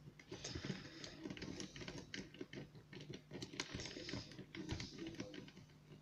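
Lock pick raking in the keyway of a brass pin-tumbler lock cylinder: rapid, irregular metal clicks and scratches as the rake runs over the pins under very light tension.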